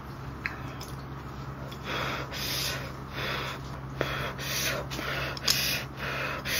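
A person breathing hard in short, hissy huffs, about one or two a second, while eating, with a few small clicks in between.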